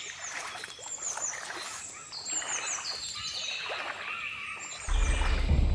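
Forest ambience: short high chirps repeating over a steady hiss, with a loud low rumble coming in near the end.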